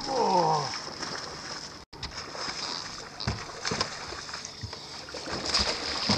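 A hooked bass splashing at the surface as it is reeled in to the boat, with scattered knocks and clicks. A short falling voice-like cry opens it.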